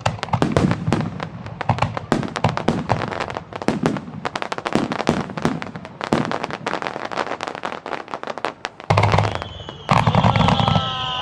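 Aerial fireworks display: a dense run of sharp bangs and crackling from shells bursting overhead, with a heavier boom about nine seconds in. Near the end a long high whistle sets in and slowly falls in pitch.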